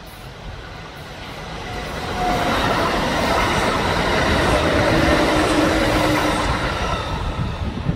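Kintetsu electric train passing close by: the rumble of its wheels on the rails builds over the first two to three seconds and stays loud, with faint steady tones riding above it.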